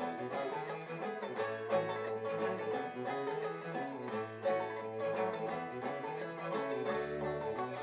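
Live acoustic string-band music: plucked strings, banjo-like picking with guitar, playing an instrumental passage between sung verses.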